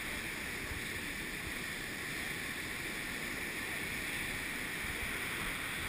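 Steady rush of whitewater rapids and falls in the river far below: an even, unbroken roar of water.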